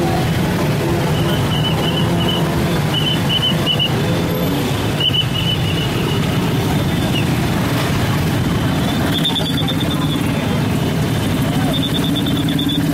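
Busy street din of vehicles and crowd, over which vehicle horns play short melodic phrases of stepped notes. A high chirping signal repeats in quick groups of four or five notes several times.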